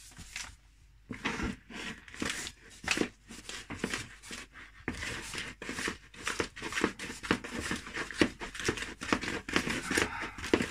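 Hands kneading and squeezing a soft, wet biscuit dough on a floured worktop: a quick irregular run of sticky, crinkly handling noises and pats that starts about a second in.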